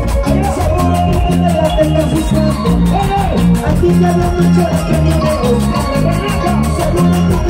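Live Andean band music led by a harp, with a drum kit keeping a fast, steady beat.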